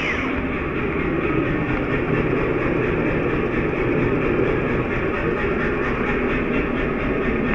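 A forge running with a steady, low roar.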